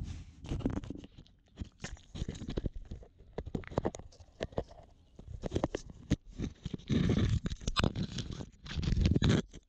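A raccoon handling and dragging a GoPro camera, heard right on the camera's own housing: an irregular run of knocks, clicks and scraping against concrete, growing busier and louder toward the end.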